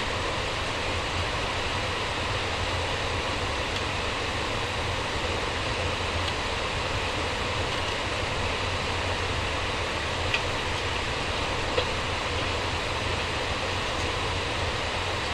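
Steady cabin noise inside an Airbus A350-900 airliner: a constant rush of air with a low hum underneath, and two faint clicks about ten and twelve seconds in.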